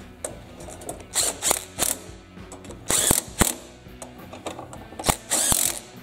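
Hand socket ratchet clicking in three short runs as it zips down the screws holding the rotating screen onto a Kohler Command engine.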